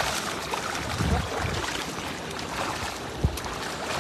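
Water splashing and churning as a cast net crammed with fish is dragged through a shallow river, the trapped fish thrashing at the surface. Heavier splashes come about a second in, and there is a single sharp knock a little after three seconds.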